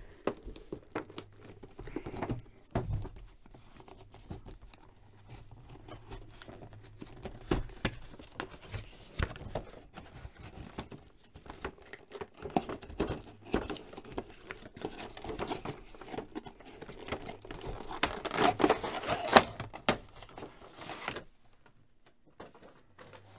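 Action figure packaging being opened by hand: the cardboard window box and its clear plastic tray rustle, crinkle, scrape and tap in irregular bursts. The bursts are busiest about three quarters of the way in, then stop shortly before the end.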